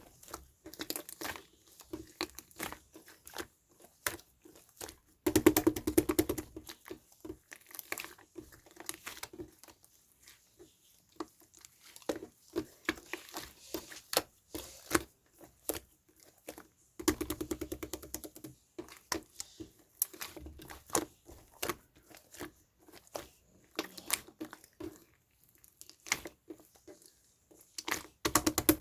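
Paper and plastic craft materials being handled close up: crinkling, tearing and scattered taps and clicks, with three longer rasping bursts, about five seconds in, around seventeen seconds in, and at the end.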